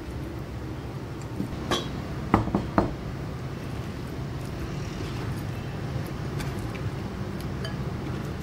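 A glass bowl set down on a wooden cutting board with a short ringing clink, then three quick knocks and clinks. A few faint ticks follow over a steady low hum.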